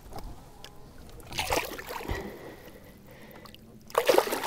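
Water splashing against the side of a boat as a lake trout is released by hand. There is a small splash about a second and a half in, and a louder splash near the end as the fish kicks free.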